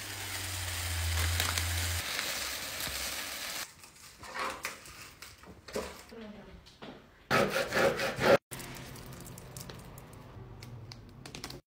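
Small coloured foam beads pouring from a plastic bag into a cardboard box, a steady rushing hiss for the first few seconds. After that, thin plastic vinyl sheets crinkle and rustle as lettering is peeled off its backing and handled, loudest about seven seconds in.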